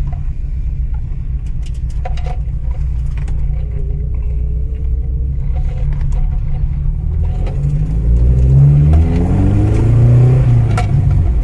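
1985 Mitsubishi Sigma's Astron 2000 four-cylinder engine running under way with a steady low drone, then accelerating from about seven or eight seconds in, its note rising and getting louder. The engine is running without vacuum advance.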